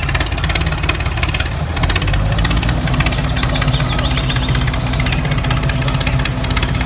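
Tractor engine idling steadily with a rapid knocking beat.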